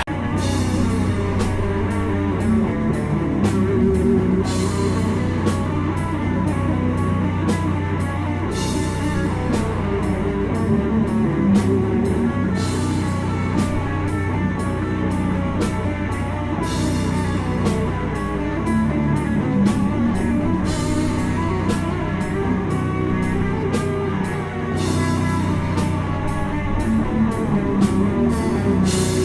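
Death metal band playing live: heavy distorted guitars over a drum kit, with cymbal and drum hits at a steady, fast beat.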